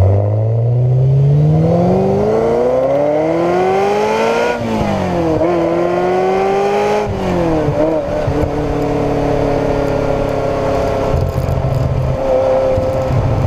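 1992 Ferrari 348ts V8 through a Nuvolari aftermarket exhaust, accelerating: the note climbs in pitch for about four seconds, dips sharply, climbs again, dips a second time around the middle, then holds a fairly steady pitch as the car cruises.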